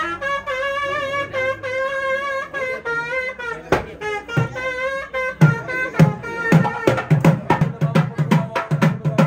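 Nadaswaram playing a wavering, held melody, then thavil drum strokes that come in about a third of the way through and quicken to a fast beat of about four strokes a second: traditional Tamil wedding music.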